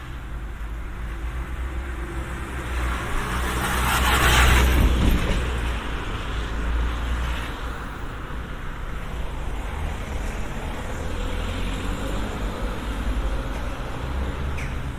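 A car passing close by on the street, its tyre and engine noise swelling to a peak about four seconds in and then fading. Steady street traffic hum follows.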